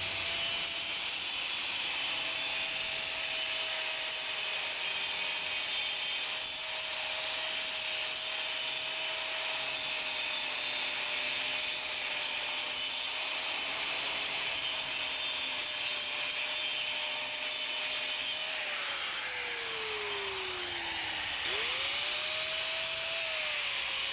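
Angle grinder cutting along a crack in concrete, opening it up: a steady whine over the gritty hiss of the blade in the concrete. About two-thirds through, the pitch sinks for a few seconds, then climbs quickly back up.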